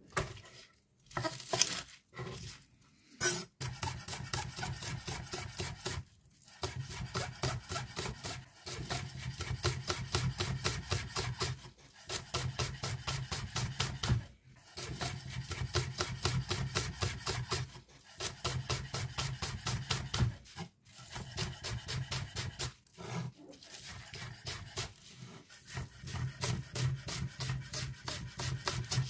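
Zwilling chef's knife rapidly chopping fresh greens on a cutting board: quick, even strokes in runs of a few seconds with short pauses between them, after a few separate knocks in the first three seconds.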